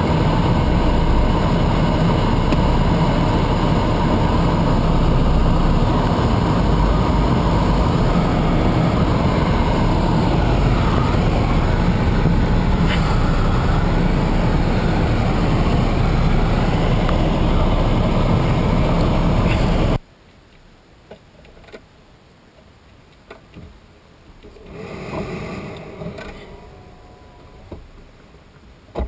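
Car being driven: steady engine and road noise with a heavy low rumble, which cuts off abruptly about two-thirds of the way through. After that comes a much quieter background with a few faint clicks and a brief swell of noise that fades again.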